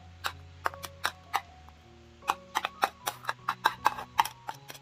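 A spoon scraping chopped onion off a plate into a steel mixer-grinder jar: irregular sharp clicks of spoon on plate and onion pieces dropping onto the steel jar and the vegetables in it, over soft background music.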